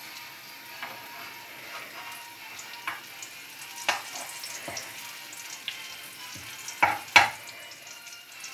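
Pancake batter frying in melted butter in a frying pan: a steady crackling sizzle, with a few sharp clicks, the loudest two about seven seconds in.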